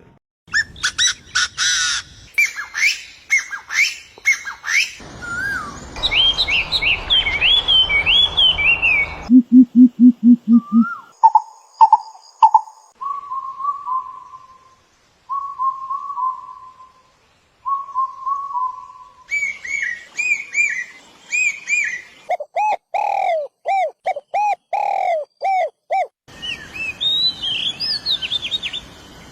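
A run of different birds' songs and calls, spliced one after another with abrupt changes every few seconds: rapid high chirps and trills, whistled phrases, a brief series of low pulsed notes, and repeated short rising notes.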